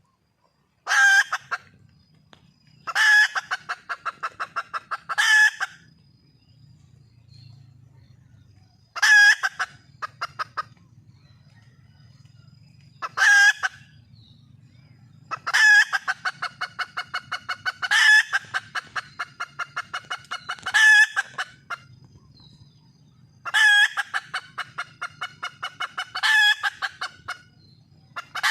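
Red junglefowl hen calling for a mate: about ten loud calls come one every two to three seconds. Each starts with a sharp cry and runs on into a quick string of clucks, some short and some lasting up to three seconds. A faint low murmur lies underneath.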